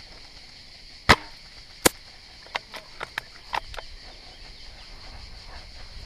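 Airsoft sniper rifle firing: one sharp crack about a second in, a second sharp click under a second later, then a quick run of about six lighter clicks and clacks.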